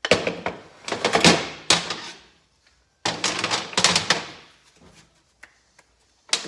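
Metal tools and engine parts clattering and knocking as they are handled and set down on a metal workbench, in two busy bursts of about two seconds each, then a single sharp clack near the end.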